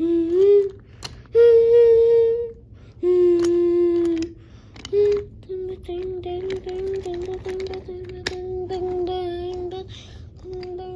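A child's voice singing or humming long held notes: a few short notes, one gliding up, then a long wavering note lasting about four seconds and another near the end, with a few faint clicks.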